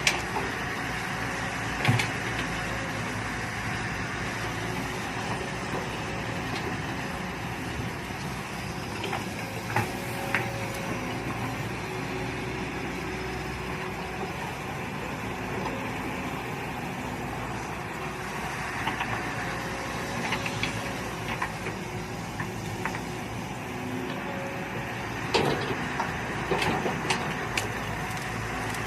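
Mini excavator engine running steadily while digging, with occasional sharp knocks and clatters and a cluster of them near the end.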